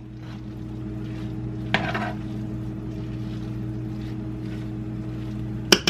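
A spoon stirring and folding sticky rice in an enamel saucepan, a soft scraping with one clack about two seconds in and sharp clinks of the spoon on the pot at the end, over a steady low hum that cuts off just before the clinks.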